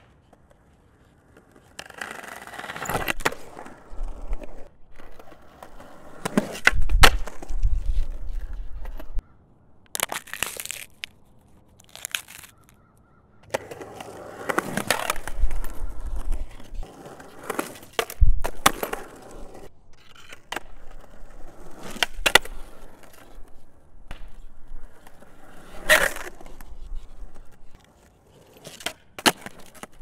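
Skateboard riding recorded close up with a field recorder: wheels rolling over the park surface, broken by sharp clacks of tail pops, board slaps and landings. The sounds come in a string of short clips with brief pauses between them.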